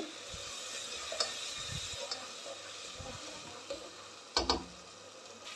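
Chicken keema frying in oil in a non-stick pot, sizzling steadily while a spatula stirs and scrapes through it. There is a brief louder clatter of the spatula about four seconds in.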